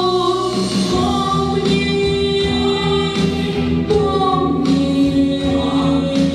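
A choir singing long, held notes, moving from note to note about once a second, with a new sung line starting near the end.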